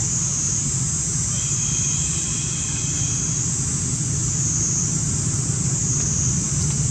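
Steady outdoor background noise: a low rumble like a running engine or traffic under a high hiss that swells and fades about every second and a half, with a faint thin whistle-like tone early on.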